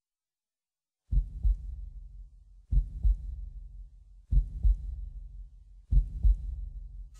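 Slow, deep heartbeat sound effect: four lub-dub double thumps about one and a half seconds apart, starting about a second in.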